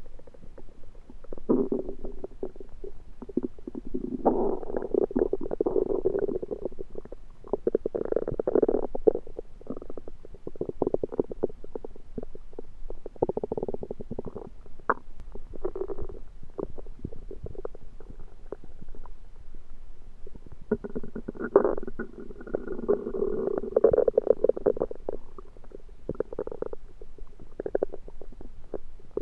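Human stomach gurgling and rumbling in irregular spells with quieter gaps between them, full of short bubbly crackles. The uploader puts these strange belly noises down to something undercooked that he ate.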